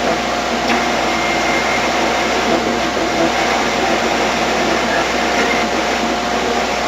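Ghost box, a radio sweeping through stations, giving out continuous static hiss with a steady whine and a few faint ticks.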